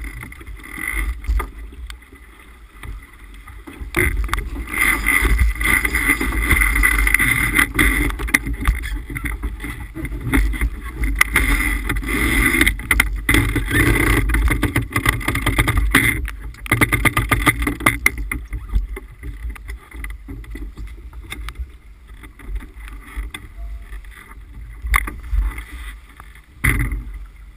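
Water rushing past the bow of a sailboat sailing hard, with wind buffeting the microphone. It grows much louder about four seconds in and eases off again after about eighteen seconds.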